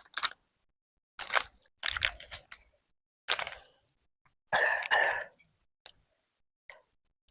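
Close-up chewing and crunching of a rice-paper roll filled with fresh lettuce, herbs and cucumber, heard as about five separate short bursts of bites and chews, the longest and loudest about two-thirds of the way in.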